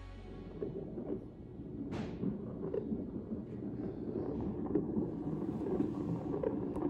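Low, uneven rumbling noise with a sharp knock about two seconds in and a few faint clicks later.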